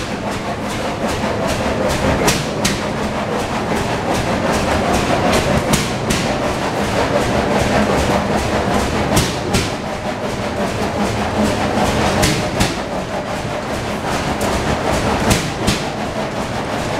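Antique stationary engines running together: a steady mechanical clatter with irregular sharp knocks and pops.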